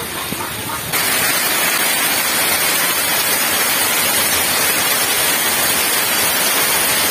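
Heavy rain pouring down steadily, with water streaming off the roof eaves. It comes in suddenly, much louder, about a second in.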